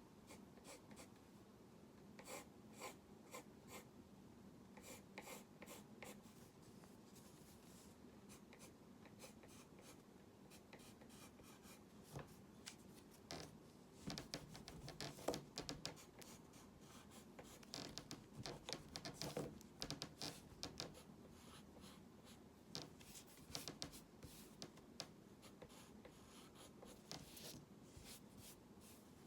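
Faint scratching of a drawing tool in runs of short, quick strokes, busiest in the middle stretch, as a figure is drawn by hand.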